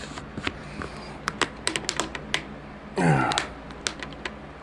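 Irregular sharp plastic clicks and taps as a Samsung phone's back cover is pressed and snapped down onto the phone, made hard to seat by its swollen battery. A brief voice sound comes about three seconds in.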